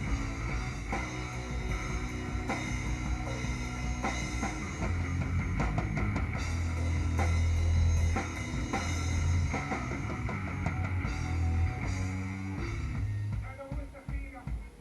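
Live heavy stoner-rock band playing, with drum kit, distorted guitar and bass, the drums hitting steadily over long low held notes. The band thins out and drops in level near the end.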